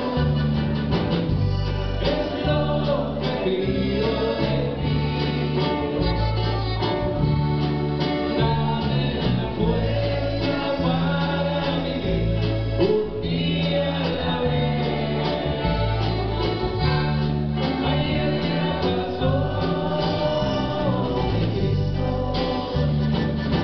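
Live band playing a song with a sung lead vocal over electric guitar, bass, drum kit and keyboards.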